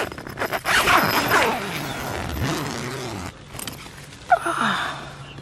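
Tent door zipper being pulled open in a long scratchy run from about half a second to three seconds in. Near the end comes one short, loud animal call that falls in pitch.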